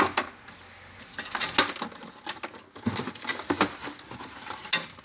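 Handling noise from small items being picked up and moved: irregular rustling and crinkling with scattered light clicks and taps.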